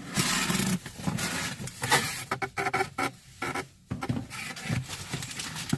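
Cardboard shipping box being opened by hand: flaps and packaging rustling and scraping, with quick clicks and crackles and a couple of short pauses.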